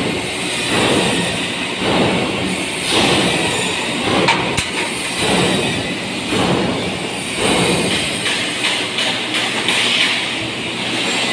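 Loud construction-site din: a continuous rumbling clatter that swells about once a second, with a sharp click about four and a half seconds in.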